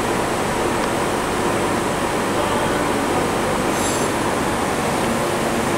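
Steady industrial machinery noise from a running laser tube-cutting machine and its equipment: a constant hiss and hum with faint steady tones, and a brief high-pitched squeal about four seconds in.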